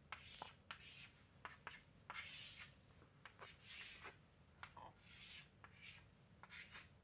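Chalk writing on a chalkboard: a run of short scratchy strokes and light taps, faint.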